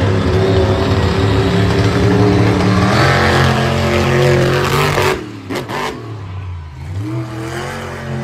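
Monster truck engine running hard and revving, its pitch climbing about three seconds in. The sound cuts off sharply about five seconds in, then the engine comes back quieter with revs rising and falling.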